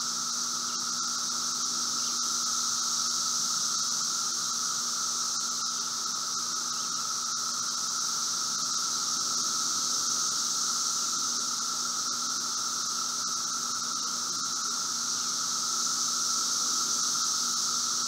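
Chorus of Brood V seventeen-year periodical cicadas (Magicicada) singing: a steady, even drone with a high and a lower pitch together, swelling gently now and then.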